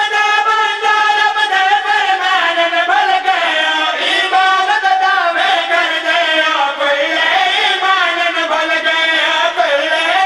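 Men's voices chanting a melodic devotional verse together into a microphone, with long held, wavering notes.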